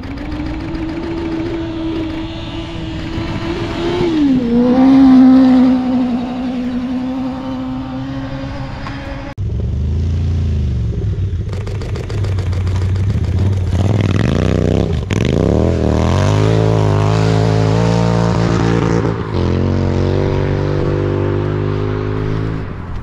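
A vehicle's engine runs steadily and drops in pitch about four to five seconds in, where it is loudest. After an abrupt change, a dirt bike's engine runs and revs, rising and falling in pitch near the middle, then settles.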